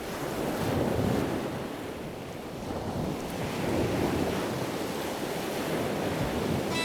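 Ocean surf: a steady rush of waves that swells and eases every few seconds.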